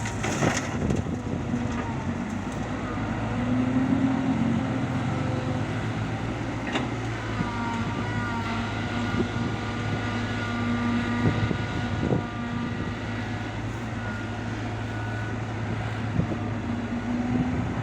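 Heavy diesel engine running steadily at a work site, swelling in level around four seconds in, with a few sharp knocks and a faint high whine partway through.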